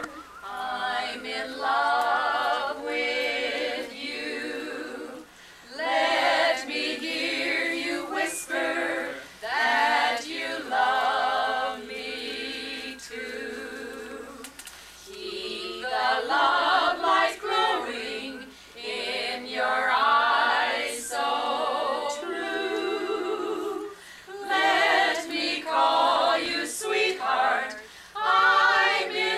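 A small group of voices, mostly women, singing a song together unaccompanied. It comes in sung phrases with short breaks between them.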